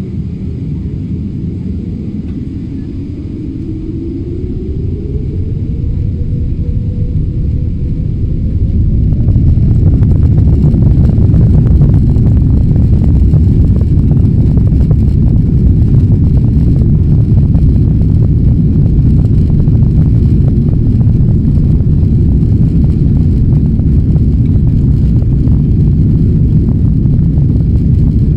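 Boeing 777-200 jet engines spooling up to takeoff thrust: a whine rises over about eight seconds, then the sound jumps into a loud steady rumble of engines at full power during the takeoff roll.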